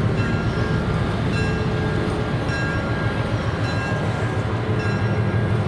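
Ex-Southern Pacific DS 109 diesel switcher locomotive running with a steady, pulsing low rumble as it moves slowly up to couple to its train. Its bell rings about once a second.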